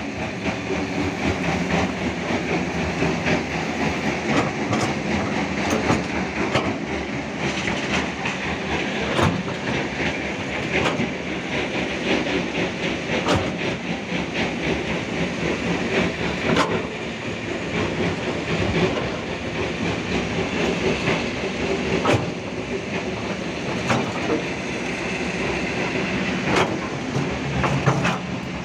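Hitachi Zaxis 210F hydraulic excavator working as its bucket digs and scrapes soil: the diesel engine running steadily under load, with repeated clanks and knocks from the bucket and its teeth every few seconds.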